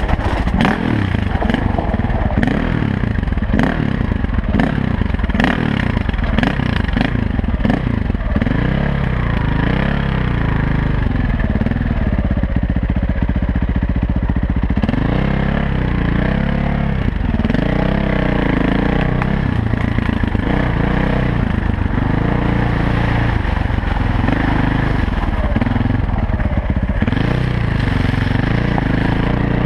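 Dirt bike engine being ridden on a bumpy trail, its revs rising and falling again and again as the throttle opens and closes. Frequent clattering knocks from the bumps run through the first several seconds.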